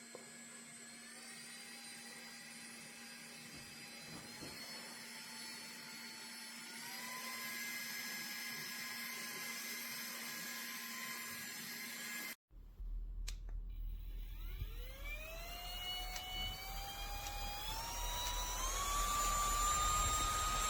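Diveblues Turbo handheld fan's high-speed motor whining and stepping up in pitch through its speed settings. It cuts off suddenly about twelve seconds in, then spins up again with a rising whine that climbs in steps and gets louder.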